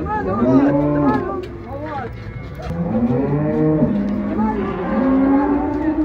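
Cattle mooing: a series of long drawn-out moos, each about a second, one after another and partly overlapping.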